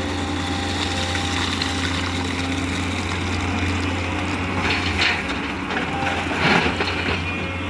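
Tata Hitachi 210 excavator's diesel engine running steadily with a low drone while it works, with brief bursts of gritty, rattling noise about five and six and a half seconds in.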